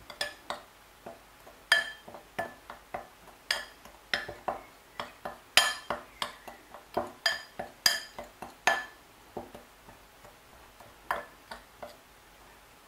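Metal spoon clinking and scraping against a glass bowl while stirring dry spice powder: many irregular, sharp ringing taps, which thin out and stop about two seconds before the end.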